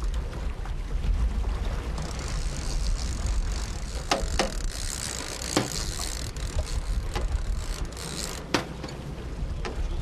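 Wind rumbling on the microphone over a boat on open water, with a fishing reel's drag ratcheting and buzzing as a hooked fish pulls line. A few sharp clicks stand out in the middle.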